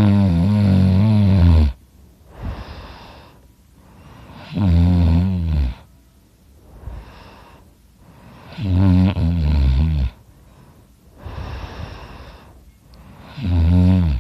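A sleeping man snoring loudly in a steady rhythm: four low, buzzing snores about every four seconds, each lasting one to two seconds, with softer breaths in between.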